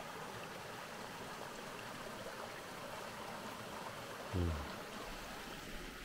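Mountain creek running over rocks: a steady rush of water that thins out near the end. A brief low thump, the loudest moment, comes a little after four seconds in.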